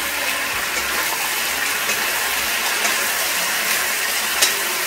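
Chicken sausage, potato wedges and capsicum in sauce sizzling in a frying pan as they are stirred with a wooden spatula: a steady hiss, with one sharp click about four and a half seconds in.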